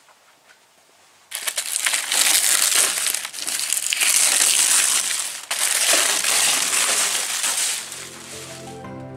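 Masking paper and tape being torn off and crumpled up. The noise is loud, starts about a second in, breaks briefly in the middle and stops near the end, when background music comes in.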